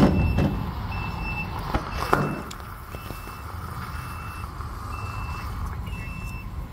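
Lithium metal from a lithium primary battery reacting in a flask of water. There is a sharp pop as it goes in and another about two seconds later, then a steady fizzing hiss as the lithium reacts and gives off smoke. A vehicle's reversing beeper beeps about once a second all the while.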